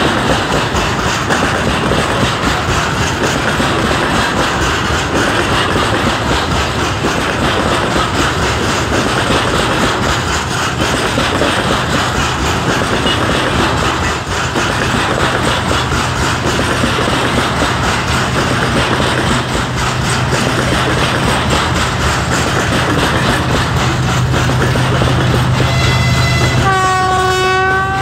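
Freight wagons rolling past on their steel wheels, with the diesel engine of a TE33AC pusher locomotive (GE Evolution V12) growing louder as it approaches. Near the end the locomotive's horn sounds one blast of several tones together, about two seconds long.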